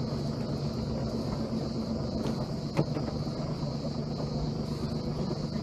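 Sailing yacht's inboard engine running steadily at idle, a low even hum, with a single sharp knock near the middle.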